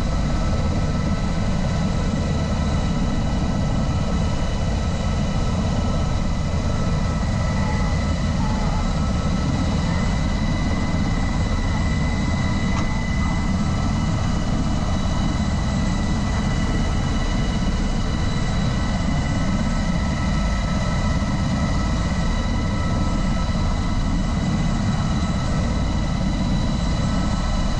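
MH-60S Seahawk helicopter running, heard from inside its cabin: a steady, loud drone of turbines and rotor with a constant high-pitched whine over it.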